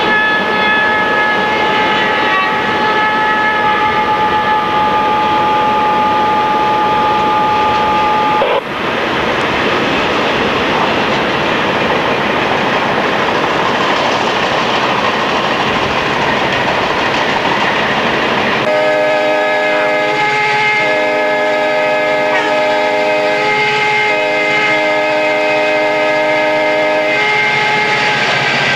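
Diesel locomotive air horn holding a long chord for about eight seconds, cut off abruptly. Then the rumble of a moving freight train mixed with road noise, and, about two-thirds of the way in, a lower-pitched multi-chime locomotive horn blowing a series of long blasts.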